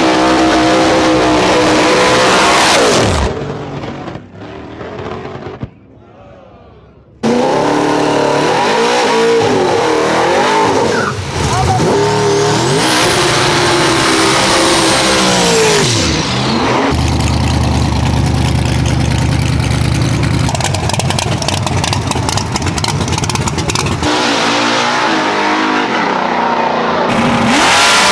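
Drag race cars' engines revving and making passes in a run of short cut-together clips, their pitch rising and falling. There is a quieter gap of a few seconds about four seconds in and a steady low drone in the later part.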